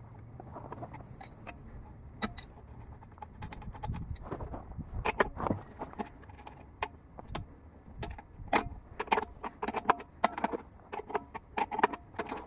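Metal hand tools and small compressor fittings clinking and rattling as they are handled. There is an irregular series of sharp metallic clicks and taps, with bunches of louder ones about five seconds in and again from about eight and a half to ten seconds.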